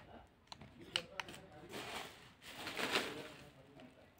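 A few light clicks and taps, then soft rustling, from a phone being handled and moved about; the rustling is loudest about three seconds in.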